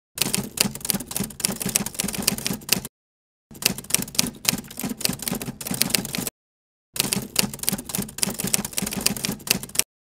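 Typewriter sound effect: three runs of rapid key clatter, each about three seconds long, separated by dead silence.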